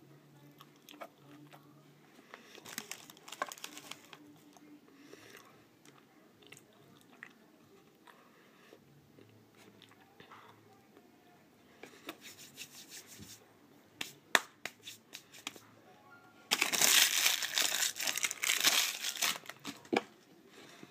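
Quiet biting and chewing of a chocolate-dipped bear claw pastry, with scattered bursts of crinkling. The loudest crinkling comes near the end and lasts about three seconds.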